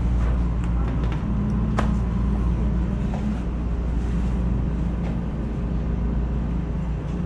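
Steady low engine rumble, like a vehicle running or idling close by, with a single sharp click nearly two seconds in.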